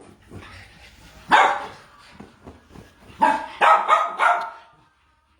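Dog barking: one loud bark about a second in, then a quick run of about four barks near the middle, with quieter sounds in between.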